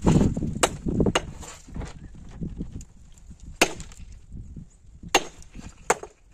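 Sledgehammer striking a quarried stone block: five sharp blows at an uneven pace, the first two close together near the start.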